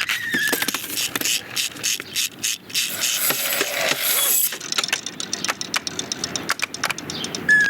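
A dense run of clicks, knocks and scraping, many quick strikes close together, typical of film sound effects of small toys clattering and moving about.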